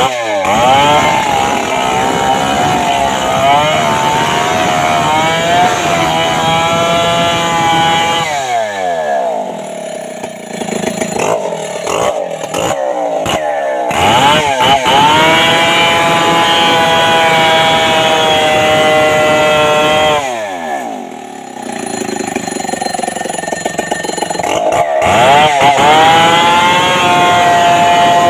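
Stihl 070 two-stroke chainsaw running at high revs and cutting into a kapok tree trunk. About a third of the way in and again about two-thirds of the way in, the throttle is let off and the pitch falls to idle, then it is revved back up.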